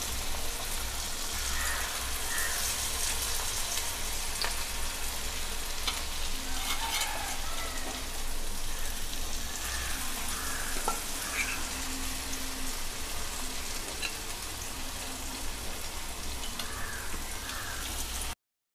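Batter-coated cauliflower florets deep-frying in hot sunflower oil: a steady, dense sizzle with a few sharp pops and crackles scattered through it. The sound cuts off suddenly near the end.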